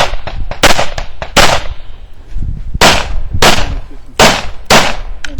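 Glock 34 9 mm pistol being fired: six sharp shots, two about a second apart, then after a short pause four more at a steady pace of roughly one every two-thirds of a second.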